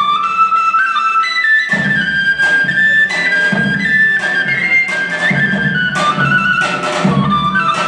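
Albanian folk dance music: a woodwind plays a wavering melody, and about two seconds in a steady drum beat joins it, roughly one and a half beats a second.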